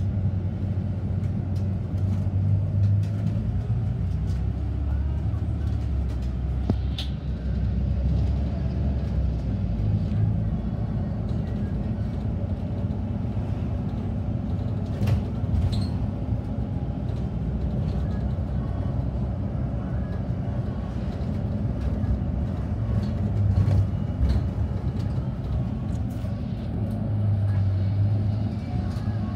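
Bus engine running and road noise heard from inside a moving bus cabin, the low engine hum shifting in pitch as the bus drives, with a few light clicks or rattles.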